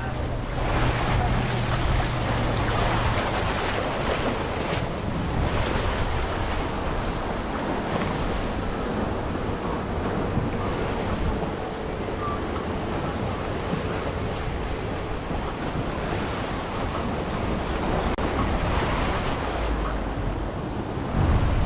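Sea waves washing onto a sandy beach, with wind buffeting the microphone; the surf noise swells and eases.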